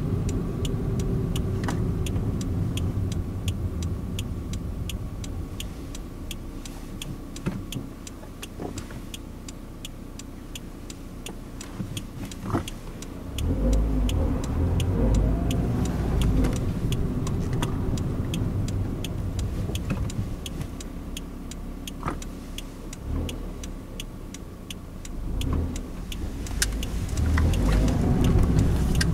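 Toyota AE111 Corolla Levin heard from inside the cabin while driving: steady engine and road noise, with the engine pulling harder about halfway through and again near the end. Faint regular ticking runs underneath.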